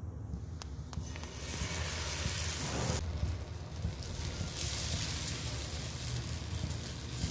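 Dosa batter sizzling on a hot cast-iron tawa as it is poured and spread in circles with the back of a ladle. The sizzle starts about a second and a half in, over a steady low rumble.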